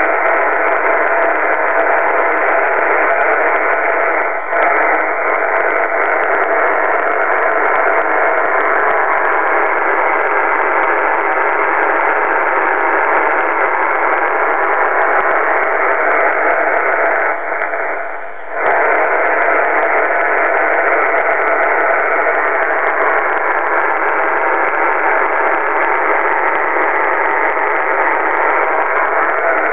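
Receiver noise from a Kenwood HF transceiver's speaker: a loud, steady hash with a few faint steady tones running through it, the radio-frequency interference radiated by a Sony TV set and picked up on the HF bands. It dips briefly about four seconds in and again around seventeen to eighteen seconds.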